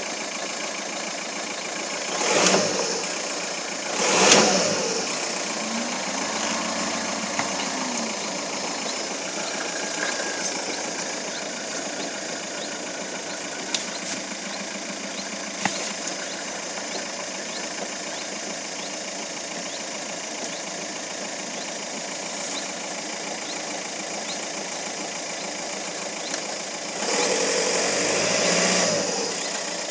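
Volkswagen Caddy engine idling steadily, blipped twice about two and four seconds in and held up for about two seconds near the end. It is run to show a knock coming from it.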